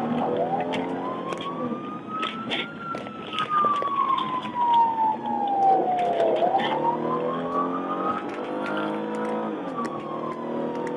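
Police car siren in a slow wail, its pitch rising and falling about once every six seconds, over vehicle and road noise.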